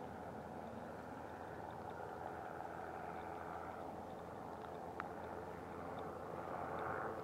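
Distant small helicopter in flight, its rotor and engine making a steady drone that swells a little near the end. A single sharp click about five seconds in.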